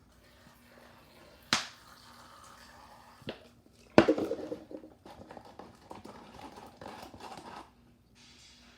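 Clear slime being handled as it forms: two sharp snaps, the second the loudest, with a softer one between, then a few seconds of crackling, squelching noise as air bubbles in the slime pop.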